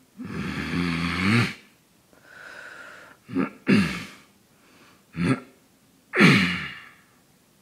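A man grunting loudly, about five times: a long grunt at the start, three short ones in the middle, and a last long grunt near the end that falls in pitch.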